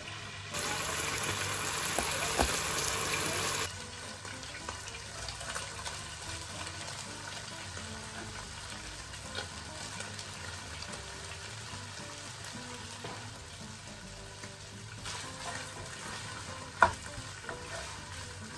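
Chicken pieces and sliced red onion sizzling as they fry in a non-stick frying pan, stirred with a wooden spoon. The sizzle is louder for about three seconds near the start, then steady. One sharp knock comes near the end.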